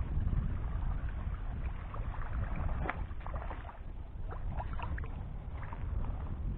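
Wind rumbling on the microphone, with a hooked bass splashing and thrashing at the surface beside the kayak from about two seconds in: short, crackly splashes.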